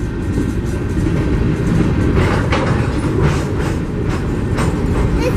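Coal train's hopper cars rolling past: a steady rumble of steel wheels on the rails, with a few sharp clacks in the second half.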